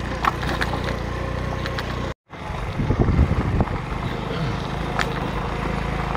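Motorcycle engine running steadily while riding over a rough dirt and gravel track, with scattered knocks and rattles and a louder patch of jolting about three seconds in. The sound drops out for a moment at a cut about two seconds in.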